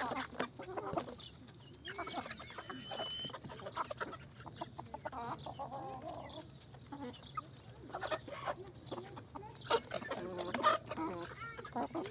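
Chickens clucking in short, broken calls, with scattered sharp clicks and taps among them.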